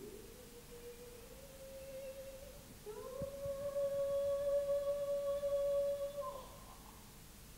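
A person humming long held notes: a steady lower note, then about three seconds in a louder, slightly higher note held for some three seconds that slides down and fades near the end.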